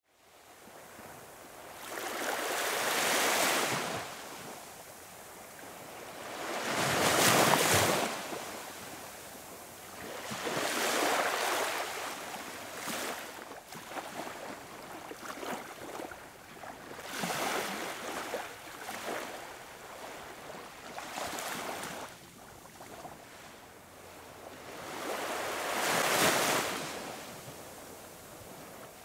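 Small waves washing up onto a sandy beach and drawing back, each wash swelling and fading every few seconds. The sound fades in at the very start.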